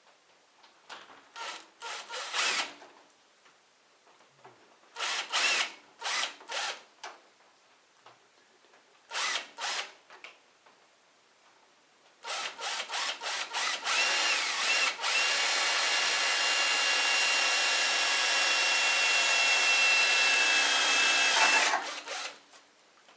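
Power drill running in several short trigger bursts, then a quick series of pulses and one steady run of about seven seconds that stops sharply near the end.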